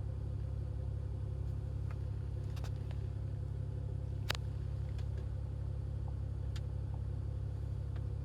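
Steady low hum of a Citroen C6 running, heard inside the cabin, with a few faint clicks and one sharper click about four seconds in.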